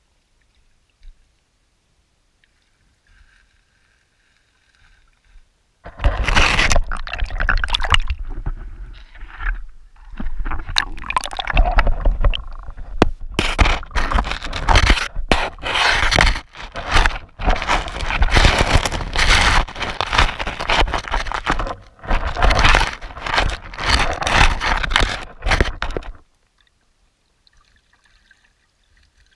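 Handling noise on an underwater GoPro Hero 4's waterproof housing: loud muffled scraping, knocking and water rush as the camera is moved against the creek bank. It starts suddenly about six seconds in and stops abruptly a few seconds before the end.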